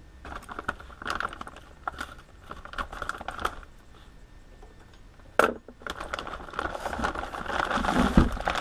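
Clear plastic bag crinkling and rustling as it is handled, with scattered small clicks and knocks. There is a sharp knock about five and a half seconds in, and the crinkling grows denser and louder near the end.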